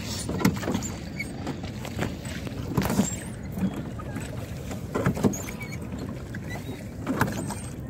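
Wooden rowboat rowed with a pair of oars: the oars pull through the water with a knock or splash every second or two over a steady wash of water.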